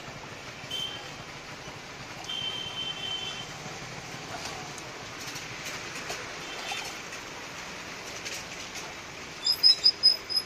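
Thick millet porridge poured back and forth between two stainless-steel tumblers, over steady street noise. Near the end comes a quick run of five sharp, high clinks.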